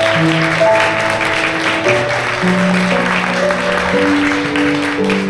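Background instrumental music in slow, held notes, over an audience clapping.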